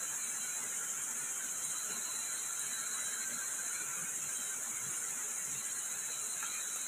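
Steady high-pitched chorus of night insects, unbroken and without distinct strokes.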